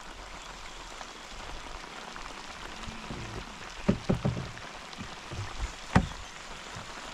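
Rain falling steadily, with a quick run of knocks about four seconds in and one sharp knock near six seconds.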